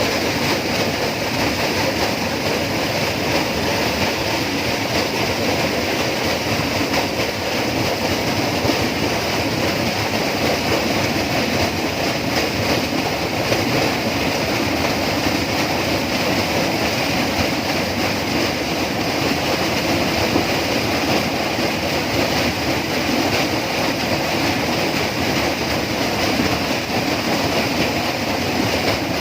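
Tropical rainforest ambience: a steady, dense wash of sound with no single event standing out.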